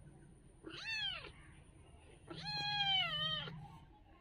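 Kitten meowing twice: a short meow about a second in, then a longer, louder meow that falls away near the end.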